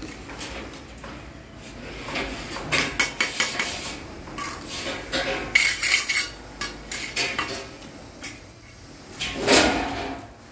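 Bricklaying: a steel trowel scraping and clinking against mortar, bricks and the mortar bucket, with bricks knocking as they are set. The clinks come in quick runs through the middle, and a longer, louder scrape comes near the end.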